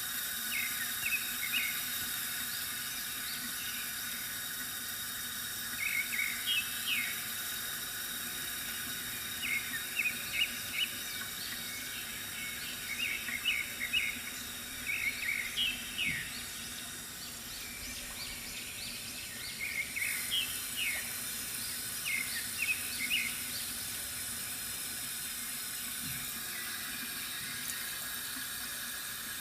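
Water running steadily from a bamboo fountain, with small birds chirping in short bursts of quick notes every few seconds.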